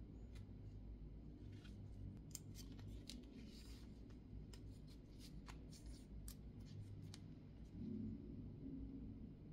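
Faint, scattered small clicks and scraping as a rubber wiper refill is pushed into and slid along the claws of a plastic rear wiper blade frame.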